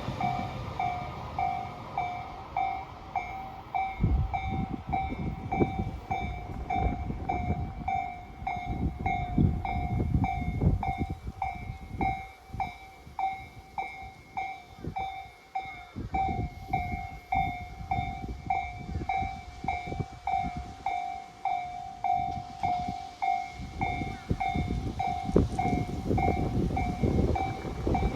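Japanese level-crossing warning bell ringing steadily, about two strikes a second, while a train rumbles and clatters past the crossing.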